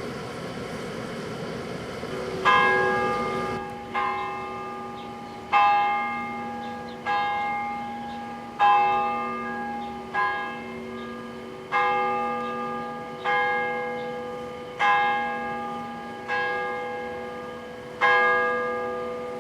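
A large bell tolling, struck eleven times at an even pace of about one stroke every second and a half, each stroke ringing on and fading before the next.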